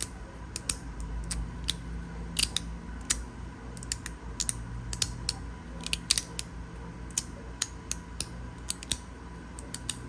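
Magnetic fidget slider clicking again and again at an uneven pace, some clicks in quick pairs, as its magnetic pieces are slid and snapped against each other during tricks.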